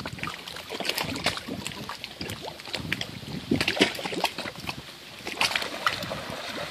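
Shallow river water sloshing and splashing around a wader's legs, with many irregular small splashes and clicks, as he stands in the water and then wades through it.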